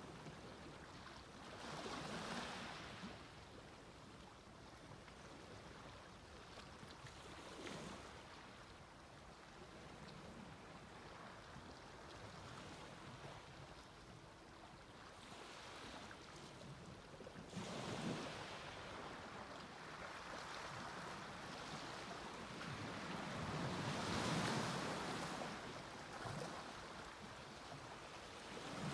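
Sea waves breaking and washing onto a beach, each wash swelling and then fading. The strongest surges come about two seconds in, around eighteen seconds, and in a longer swell near the end.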